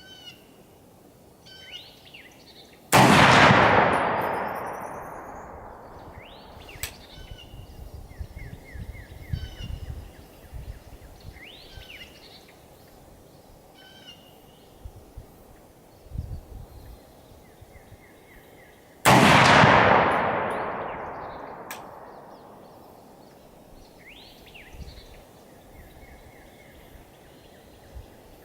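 Two rifle shots from a Romanian PSL firing 7.62x54R steel-case rounds, about sixteen seconds apart, each followed by a long echo dying away over a few seconds. Birds chirp faintly in between.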